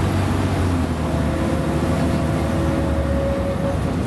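Diesel engine of a Mercedes-Benz O-500UA articulated bus running steadily with a low drone, a faint whine sounding over it for a couple of seconds.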